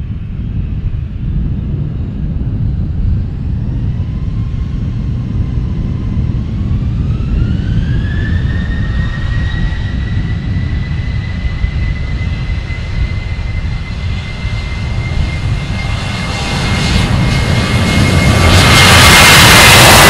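Boeing 737-800's CFM56-7BE turbofan engines spooling up for takeoff. A whine rises in pitch about four to eight seconds in and then holds steady over a low rumble. The whole sound grows much louder near the end as the aircraft rolls past at takeoff power.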